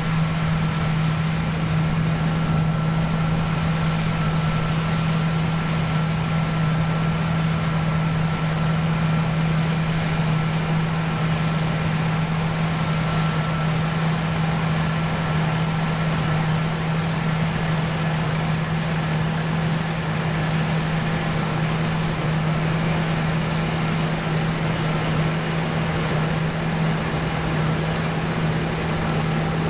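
John Deere T670i combine harvester running steadily, a constant low hum over the even noise of the machine.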